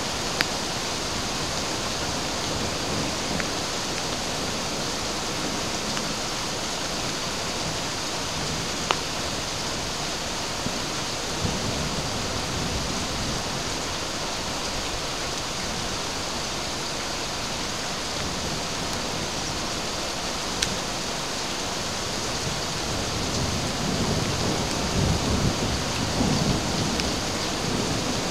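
Heavy rain mixed with ice falling in a steady hiss, with a few sharp ticks here and there. A low rumble swells in the last few seconds.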